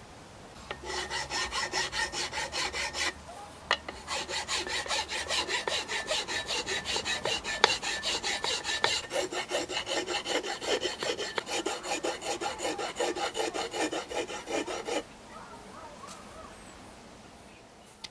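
Hand file scraped back and forth across the walnut handle of a knife held in a vise, in quick even strokes of about five a second. The filing breaks off for about a second near the start, then runs on and stops some three seconds before the end.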